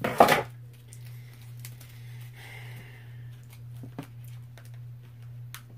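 Handling noise in a small room: a short loud rustling knock at the start, then a few faint clicks over a steady low hum.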